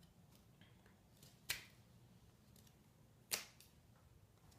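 Two short, sharp wooden clicks, about two seconds apart, from sticks being handled and knocked together, over near silence.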